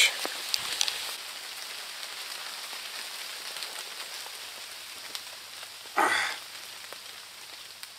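Steady rain falling, an even hiss with a few light clicks in the first second. A person makes one brief vocal sound about six seconds in.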